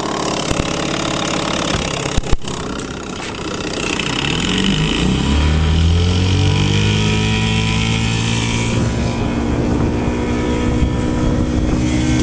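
1974 Johnson 6 hp two-stroke outboard running under way, on oversized spark plugs screwed straight into its stripped aluminium head. Two sharp knocks come about two seconds in. The engine then speeds up, its pitch rising, and settles into a steady, louder run with water hissing along the hull.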